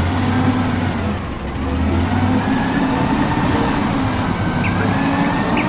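A truck engine running steadily, with a slight rise and fall in pitch.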